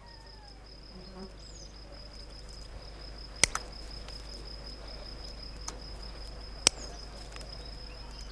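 Revolving leather punch pliers snapping through a leather strap: a sharp double click about three and a half seconds in, a faint click a couple of seconds later and another sharp click near seven seconds. Under them, a steady high insect chirring.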